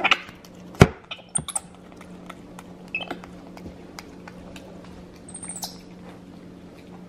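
White-faced capuchin monkey eating at a high chair tray: scattered small clicks and taps, with one sharp knock about a second in, and a few brief high-pitched squeaks, about a second and a half in and again after five seconds.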